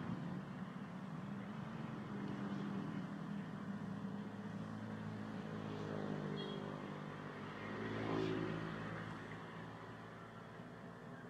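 Motor vehicle engine running, a steady low hum that swells to its loudest about eight seconds in and then fades, as a vehicle passing by does.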